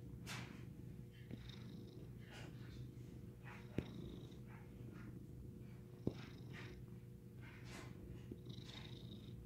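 Domestic cat purring steadily close to the microphone while it kneads and nuzzles a person's hair, with repeated short rustles in the hair. Two sharp clicks, about four and six seconds in, are the loudest sounds.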